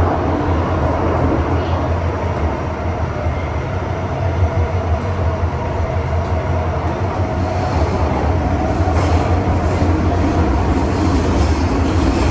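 MTR M-train metro carriage running, heard from inside the car: a steady rumble of wheels on track with a constant low hum.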